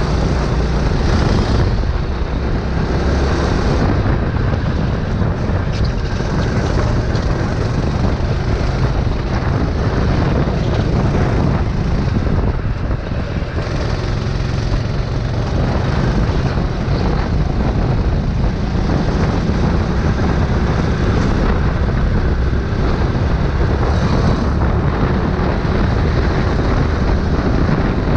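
Go-kart engine running at racing speed, heard from the kart itself with heavy wind noise on the microphone. It runs steadily, with a brief slight dip in loudness about halfway through.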